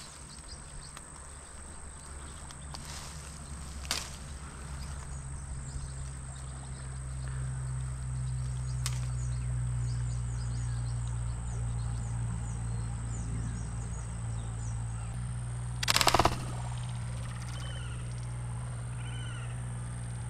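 A slingshot rifle fired once about three-quarters of the way through: a short, sharp snap as the bands release and send a fishing arrow into the river. Steady low rumble throughout, and small birds chirping after the shot.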